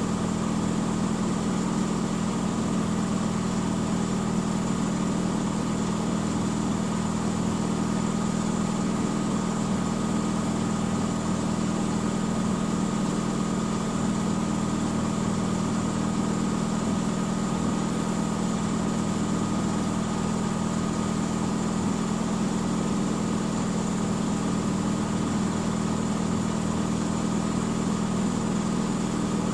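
Miele W 5963 washing machine's drum spinning at a steady high speed, a constant low hum with a faint high whine that holds unchanged throughout.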